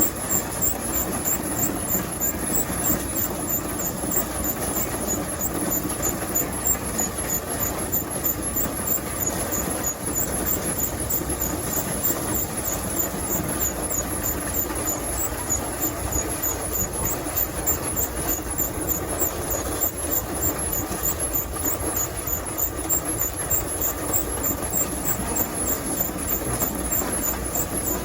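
A machine or engine running steadily with a fast, even ticking, about three ticks a second.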